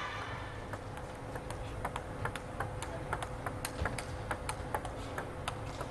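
Table tennis rally: the ball clicks sharply off the paddles and bounces on the table, about three or four clicks a second. The clicks start about a second in and stop near the end.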